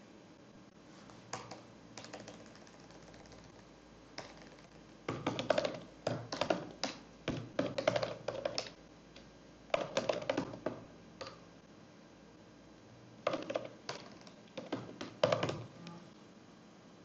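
Typing on a computer keyboard: several bursts of quick keystrokes with pauses between them.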